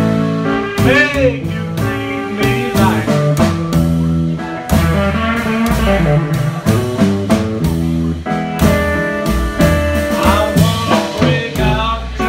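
Live blues band playing: a plucked upright double bass walks through low notes under an electric guitar with bent notes, over a steady drum beat.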